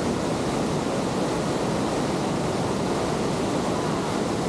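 Big river rapid in high flood flow, around 6,000 cfs: the steady, unbroken rush of churning whitewater.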